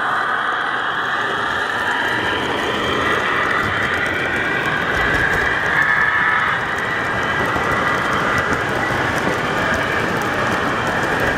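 Model train passing close by: a diesel locomotive followed by a string of freight cars, with a steady running noise from the motor and the wheels on the metal rails, a little louder about six seconds in.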